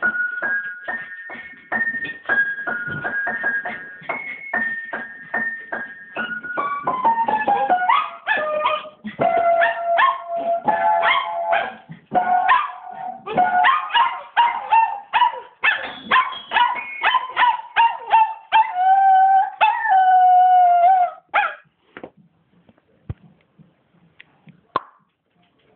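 A dog howling along to a piano being played in runs of notes. Near the end the dog gives a long wavering howl, then the playing and howling stop.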